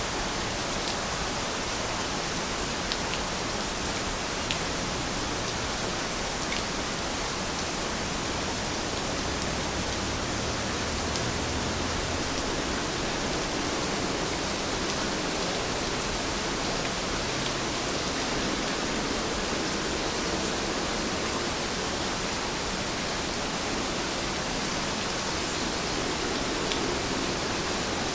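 Steady rain falling, an even hiss with a few faint drop ticks here and there.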